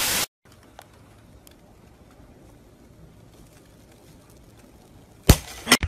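A brief burst of TV static hiss at the start. Then faint quiet with a few small clicks of a metal spoon on a ceramic cup, and two loud sharp noises near the end.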